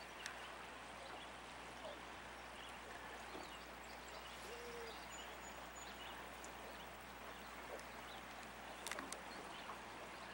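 Faint outdoor river ambience: a steady, even hiss of wind and water, with a couple of brief, faint bird calls midway and a few soft clicks near the end.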